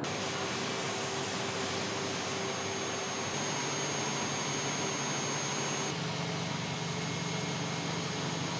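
A machine running steadily with a loud hiss and a faint high, steady whine, starting suddenly and cutting off abruptly near the end.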